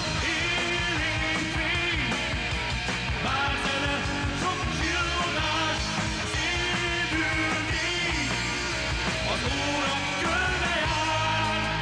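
Rock song played by a full band, with a steady drum beat and a lead line bending up and down in pitch over the accompaniment.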